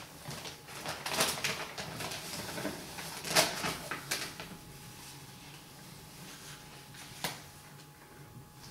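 Paper and plastic rustling and crinkling as a vinyl wall decal's transfer paper is handled and peeled back, with a few sharper crackles.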